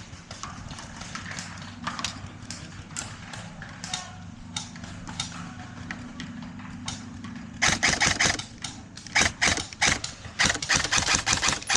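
Airsoft guns firing: scattered single clicking shots at first, then rapid clattering bursts from about two-thirds of the way in.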